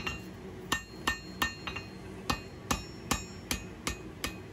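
Hand hammer striking a hot steel knife blade on the face of an anvil, evening up the bevel: a steady run of about eleven blows, two to three a second, each with a short metallic ring.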